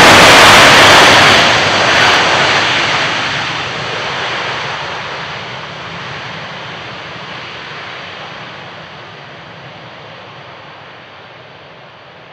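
Boeing 767-300 airliner's twin GE turbofan engines running loud as it rolls down the runway after landing with its ground spoilers up. The noise is loudest in the first second or two, then fades steadily as the jet moves away.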